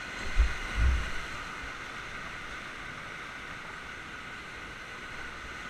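Whitewater rapids rushing steadily around an inflatable raft, with two low thumps about half a second apart near the start.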